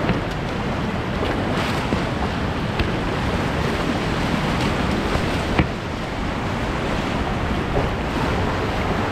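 Class 3/4 whitewater rapids rushing steadily around a whitewater kayak, with splashes from the bow and paddle and a few sharp knocks, the strongest about five and a half seconds in.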